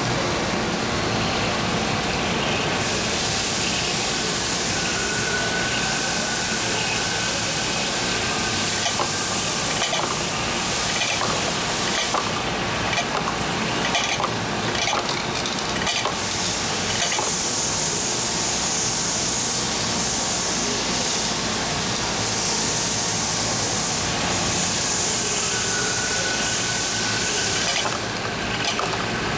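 Centerless grinder (Royal Master TG-12x4) thrufeed grinding carbide rod with a diamond wheel under flood coolant. The coolant spray and grinding make a steady hiss and splash that weakens and strengthens a few times, with a brief faint whine now and then.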